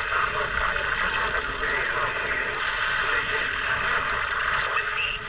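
CRT SS9900 CB transceiver on AM receiving the 11-metre band: distant stations' voices talking over one another beneath heavy static hiss, heard through the radio's speaker as it is tuned up the band.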